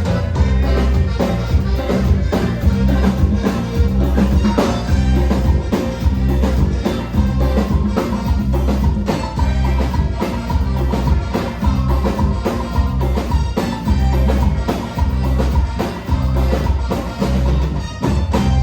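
Live band playing a cumbia medley, with heavy bass and drum kit keeping a steady beat; the music stops right at the end.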